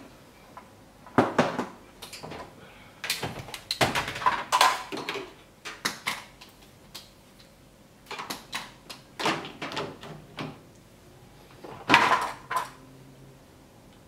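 Plastic casing of a washing machine's controller module being handled and pried open: a series of irregular sharp clicks and knocks as clips and casing parts snap and bump, loudest about a second in and again near the end.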